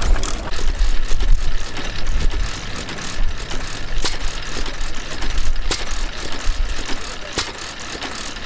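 Vintage single-cylinder stationary engines running, heard one after the other. Each gives a low, uneven thumping beat with sharp mechanical clicks from the open valve gear. The sound changes about two seconds in, when the second engine takes over.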